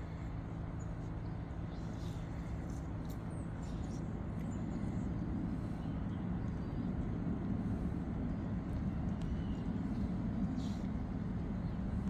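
Steady low outdoor background rumble with a faint steady hum, swelling slightly after about four seconds, and a few faint high chirps and ticks.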